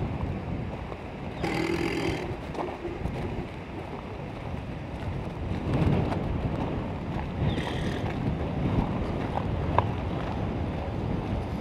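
Wind buffeting the microphone of a handheld camera outdoors: a steady low rumble, with a few brief faint knocks.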